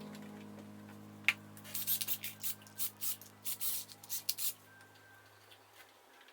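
A held music chord fading away, with a quick run of about a dozen short, hissy scrapes starting about a second in and stopping after a few seconds.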